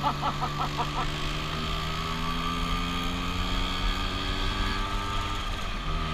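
Vespa scooter engine running steadily at riding speed, its note climbing slowly as it speeds up, with wind and road noise on the microphone.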